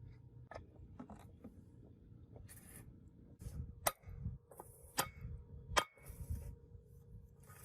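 Handling noises from workshop work: a few sharp clicks and knocks, with short stretches of scraping hiss between them.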